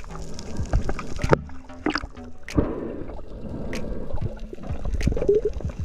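Underwater water noise picked up by a diving camera: rushing and bubbling that swells and fades as the diver moves, with many sharp clicks scattered through it.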